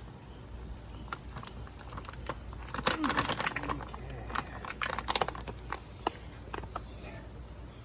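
Light clicking and clattering of objects handled by hand, loudest in two clusters about 3 and 5 seconds in.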